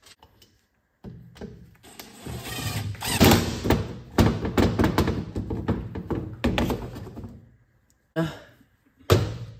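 Cordless impact driver running small 4 mm Allen bolts into the stator and pulser on an ATV's magneto side cover, its hammering a fast rattle in several runs, followed by two short knocks near the end.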